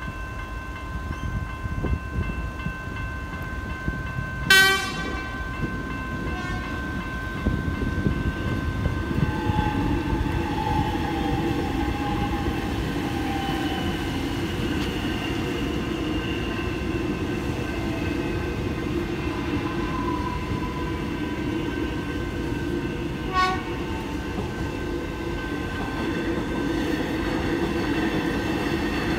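An electric suburban train rumbles across a level crossing while the crossing bells ring steadily. The train gives a short horn blast about four seconds in, the loudest sound here, and another brief blast about three-quarters of the way through. A falling electric whine rises out of the rumble as the train passes.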